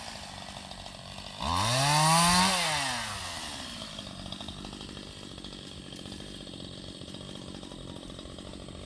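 Two-stroke chainsaw idling, revved up once for about two seconds, its pitch rising and then falling back to a steady idle.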